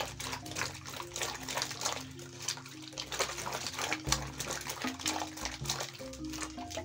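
Hands washing peeled matoke (green cooking bananas) in a metal basin of water: repeated splashing and sloshing, with background music.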